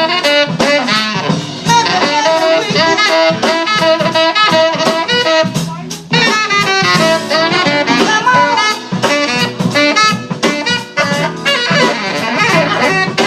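Live saxophone solo, a moving melodic line over a jazz band with a drum kit keeping a steady beat.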